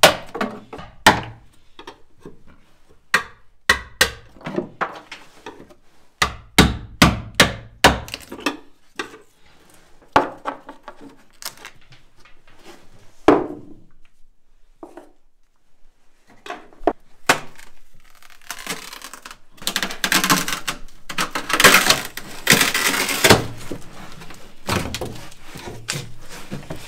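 Hammer knocking on a wooden laminating form to break it apart from a freshly fiberglassed tank flange: a long run of sharp, separate wooden knocks, then, after a short pause, a few seconds of rougher, denser noise.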